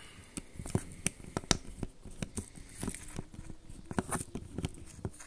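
Small screwdriver working tiny screws out of a plastic sound-board housing: a string of irregular light clicks and ticks, several a second.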